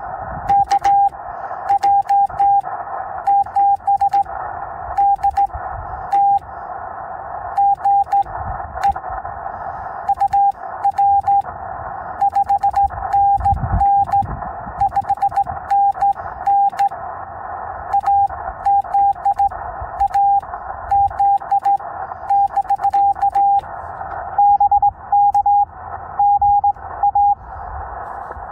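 Morse code (CW) from a Yaesu FT-891 HF transceiver on 20 meters: a single steady beep, keyed on and off in dots and dashes over a bed of band hiss.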